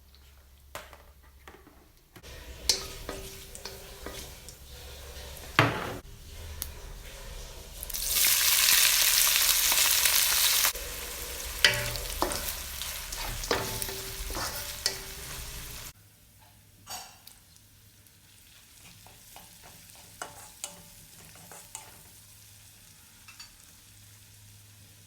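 Food frying in hot oil in a pan, stirred with a spatula that clicks and scrapes against the pan. A loud sizzle starts about eight seconds in and lasts around three seconds, then quieter stirring follows.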